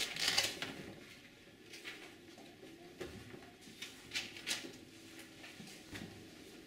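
Students writing in notebooks: faint pen scratching and paper rustling, with scattered small taps and clicks against the desks.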